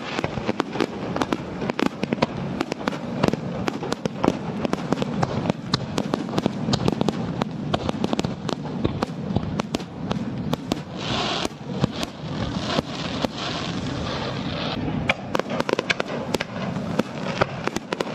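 Fireworks going off in quick succession, a dense string of sharp bangs. A brighter crackling hiss joins in from about eleven to fifteen seconds in.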